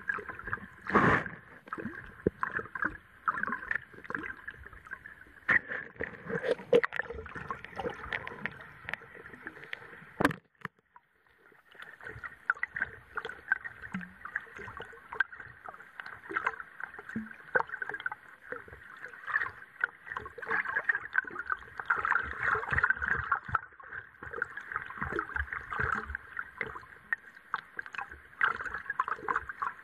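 Underwater sound picked up by an action camera in its waterproof housing: a steady hiss with dense crackling and clicking. The sound drops out briefly about ten seconds in, then resumes.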